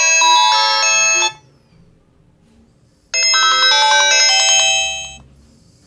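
A ringtone melody played loud through the Vgotel S10 keypad phone's loudspeaker, as a test of the speaker. It plays as two phrases with a pause of about two seconds between them, ending about a second before the end.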